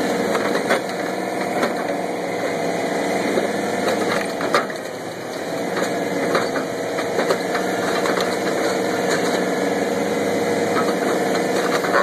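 Small engine running steadily, driving a hydraulic log splitter, with scattered knocks of split firewood being handled and dropped. The engine note dips briefly about halfway through.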